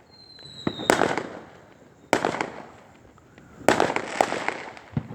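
Aerial fireworks going off: a thin whistle, falling slightly in pitch, ends in a sharp bang about a second in. Another bang follows about two seconds in, then a quick cluster of crackling bangs near the end.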